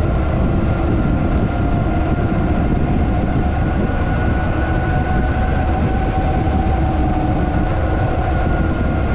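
Wind rushing over the microphone and tyres rolling on wet pavement as a mountain bike rides along a paved road: a loud, steady rush with a faint steady hum in it.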